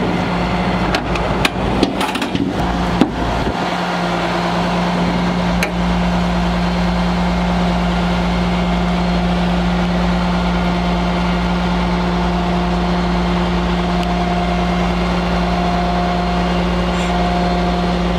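Heavy rotator tow truck's diesel engine running steadily, a low even drone, with a few sharp metallic knocks in the first few seconds.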